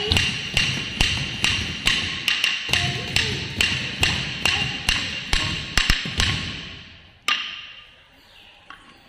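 A stick beating time on a wooden block for Bharatanatyam Tatta Adavu practice, about two sharp strokes a second, over the slap of bare feet stamping on the floor. The beat stops about six seconds in, with one last stroke a second later.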